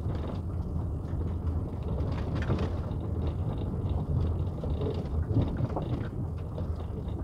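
A car driving slowly, heard from inside the cabin: a steady low rumble of engine and tyres, with scattered light clicks and crackles.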